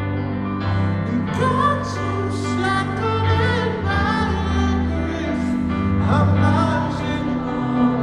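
Live slow ballad: sustained keyboard chords under a singer's voice holding long notes with vibrato.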